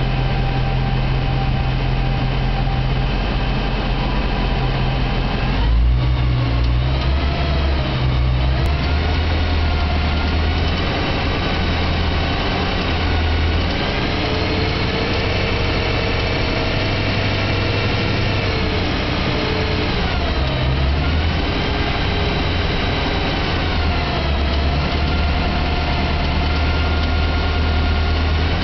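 BMW E92 M3's V8 engine running at about idle, its speed wavering slightly a few times, with the clicking noise that started after the car's 1,200-mile service.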